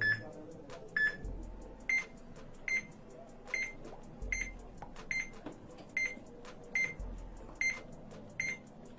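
Electronic timer beeping, a short high pip repeating evenly about every 0.8 seconds as it counts the challenge time, the pitch stepping up slightly after the first two pips.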